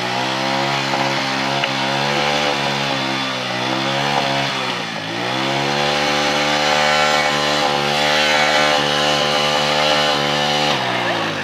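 Small motorcycle engine revved hard and held at high revs with the bike standing still; the pitch sags briefly about three and a half and five seconds in, climbs again, then falls away near the end.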